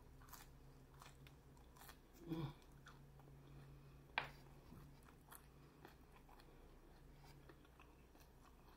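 Faint close-up chewing of a crunchy hard-shell beef taco, with a few soft crunches and a sharper click about four seconds in, over a steady low hum.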